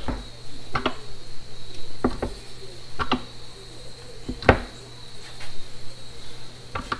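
A steel bracket strip clamped in a bench vise being bent over by hand to form a lip, giving a handful of sharp metal clanks about a second apart, the loudest about four and a half seconds in.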